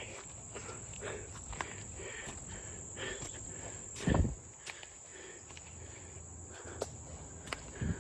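Footsteps walking over woodland ground, with scattered light clicks and one heavier step about four seconds in, under a steady high insect drone.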